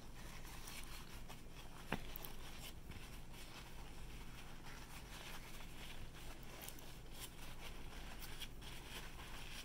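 Quiet room tone: a steady low electrical hum under faint hiss, with one short click about two seconds in and a few faint ticks.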